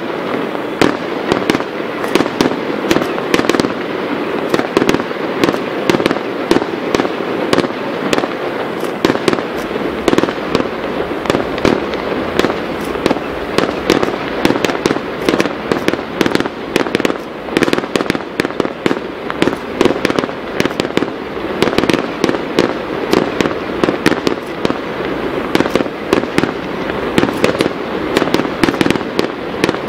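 Fireworks display: a dense, unbroken barrage of bangs and crackles, several reports a second, keeping up without a pause.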